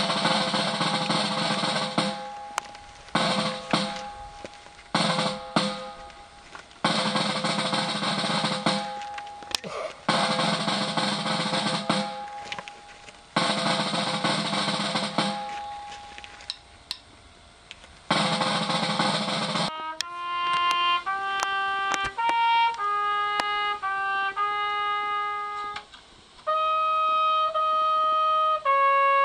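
Snare drum rolls, each about two seconds long with short pauses between. About twenty seconds in they give way to a solo trumpet playing a slow melody, its last notes held longer.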